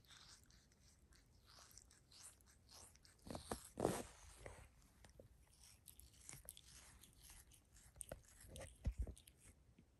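Sphynx cat grooming itself: soft licking and nibbling at its skin and toes, a string of small wet clicks, with louder bouts of chewing about four seconds in and again near the end.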